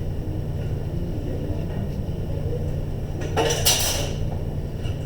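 A single short scrape of drawing tools on paper, as a pencil line is ruled along a T-square, lasting under a second a little past the middle. A steady low hum runs underneath.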